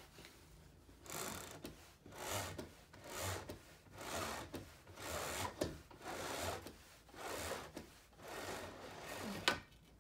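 Neolux Horizon roller shade being raised by hand in repeated pulls, about one a second, each pull a rasping rub of the operating mechanism. It ends in a sharp click near the end as the shade reaches the top.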